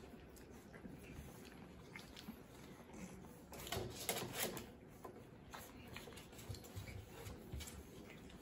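French bulldog puppies moving about on blankets and a padded floor: soft pattering and scuffling of paws, with a louder scuffle about four seconds in.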